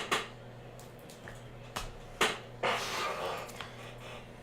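Trading cards and plastic card holders being handled: a few short clicks and a brief rustle over a steady low hum.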